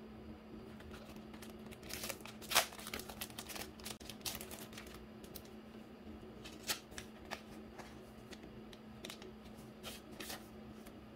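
Rustling and crinkling of a clear plastic sleeve and a paper packet of sticker sheets being handled, in short scattered bursts, the loudest about two and a half seconds in.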